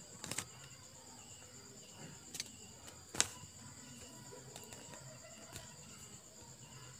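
Crumpled sheet of printer paper crackling a few times as it is held and handled, the sharpest crackle about three seconds in, over a steady high-pitched background drone.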